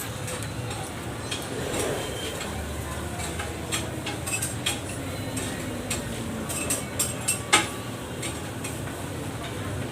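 Scattered clinks and taps of cutlery and dishes over a steady background noise, with one sharper knock about seven and a half seconds in.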